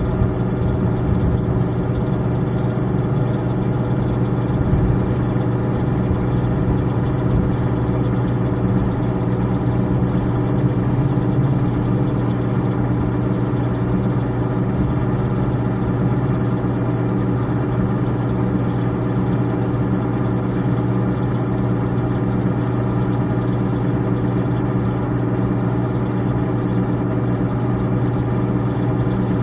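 An engine idling steadily: a low, even drone that holds one pitch with no change in speed.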